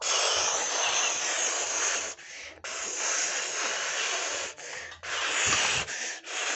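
Loud rushing noise of something rubbing against the phone's microphone, in long stretches broken by a few short gaps.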